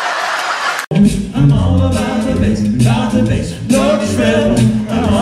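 A five-man a cappella group singing live in close harmony, with a deep bass voice holding low notes under the upper parts. It comes in with an abrupt cut about a second in, after a short stretch of noisy crowd sound.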